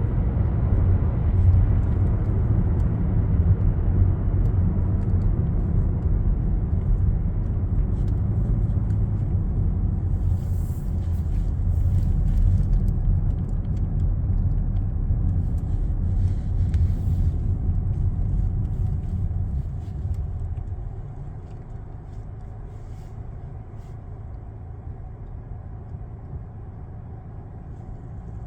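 Steady low rumble of a moving vehicle that drops noticeably quieter about twenty seconds in.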